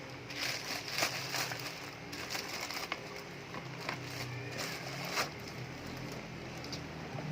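Unboxing packaging being handled: scattered crinkles and sharp knocks of plastic and cardboard, over a low steady hum.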